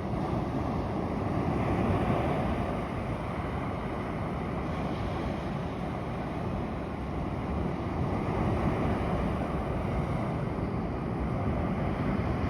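Atlantic Ocean surf washing on the beach: a steady rush of breaking waves that swells louder twice.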